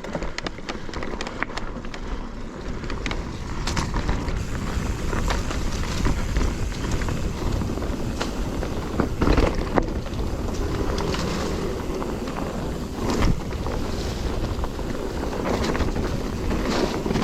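Wind rushing over the microphone and a mountain bike's knobby tyres rolling over a dirt trail on a descent, with frequent short knocks and rattles from the bike over bumps.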